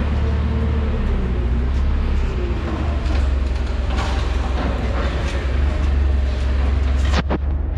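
Forklift engine running steadily while it lifts a truck's steel utility body, with a few scattered knocks and a quick cluster of sharp clicks near the end.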